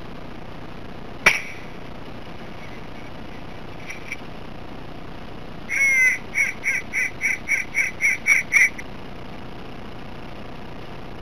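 A single sharp crack about a second in, then a run of about ten loud, evenly spaced quacks, roughly three a second, lasting about three seconds.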